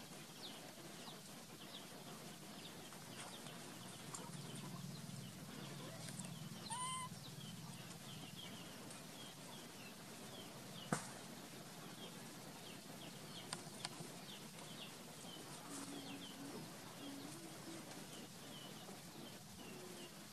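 Faint outdoor ambience with many scattered short bird chirps. A brief pitched call comes about seven seconds in, and a single sharp click about eleven seconds in.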